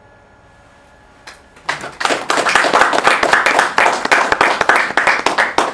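Audience applauding: after a moment of quiet room tone, a single clap and then many hands clapping together from about a second and a half in.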